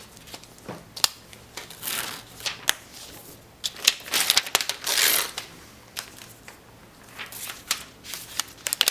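iPad packaging being handled: paper and cardboard rustling in short spells, with scattered light clicks and taps.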